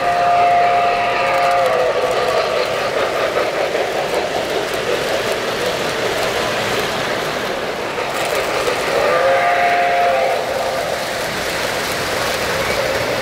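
An O-gauge model train's sound system sounds two long blasts of several notes together, one right at the start and one about nine seconds later. Each sags slightly in pitch as it ends, over the steady noise of trains running on the layout.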